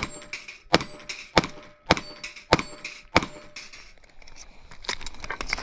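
Airsoft pistol shots fired in a steady string, a sharp crack roughly every half to two-thirds of a second for about three seconds, then a pause with small clicks and two or three more shots near the end.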